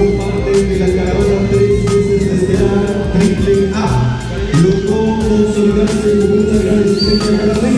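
Wrestler's entrance music playing loudly over the arena's sound system: a song with long, slightly wavering sung notes over a steady beat.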